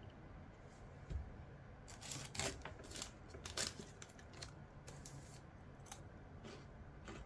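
Faint scattered clicks and rustles, bunched between about two and four seconds in, over a low steady hum.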